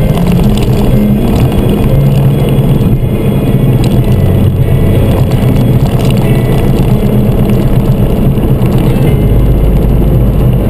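Mini Cooper S driving, its engine and tyre noise running steadily.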